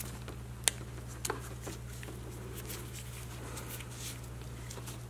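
Small clicks and rustling of insulated spade connectors being pushed onto the terminals of a rocker switch by gloved hands: one sharp click about a second in and a quick double click just after, over a steady low hum.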